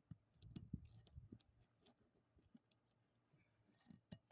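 Faint scattered clicks and soft knocks of a roofing pry bar working under brittle asphalt shingles to loosen and pull their nails, with a sharper click near the end.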